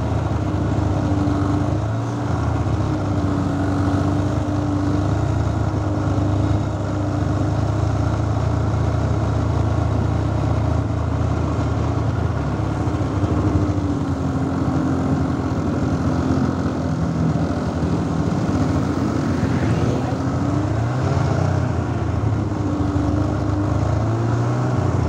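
Snowmobile engine running steadily, heard from the rider's seat, its pitch wavering up and down a little.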